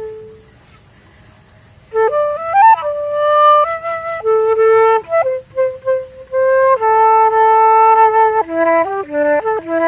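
Solo flute improvising a slow, meditative melody. A held note fades out, and after a short pause a new phrase begins with quick ornamental turns and a slide, then long held notes, then faster stepping notes near the end. A steady high hiss runs underneath.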